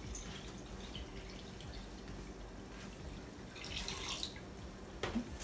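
Water poured from a plastic gallon jug into a plastic bucket, a quiet steady trickle with a short louder patch about four seconds in and a sharp click near the end.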